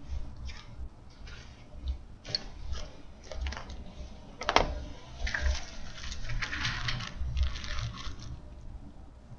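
A plastic zip-top bag crinkling and rustling as it is handled and pulled open, with scattered small clicks and one sharp click about halfway through.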